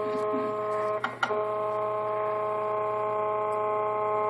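3D printer's stepper motors running as the gantry moves, a steady whine of several pitches together; a little over a second in it breaks off briefly and resumes at a slightly lower pitch.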